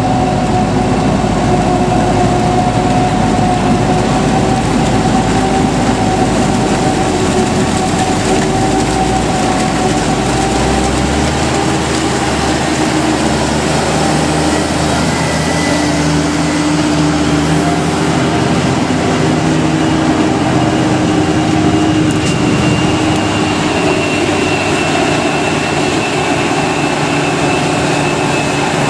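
Krone Big X 700 self-propelled forage harvester running under load while chopping standing maize, a loud steady mechanical din with steady whining tones through it, together with a tractor engine running alongside. The deep rumble underneath changes about a third of the way in.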